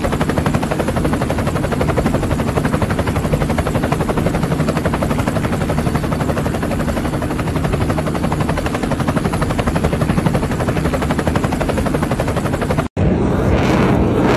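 Mil Mi-17 twin-turbine military helicopter running on the ground with its main rotor turning, a loud, rapid, steady beating of the blades over engine noise. Near the end the sound cuts off abruptly at an edit.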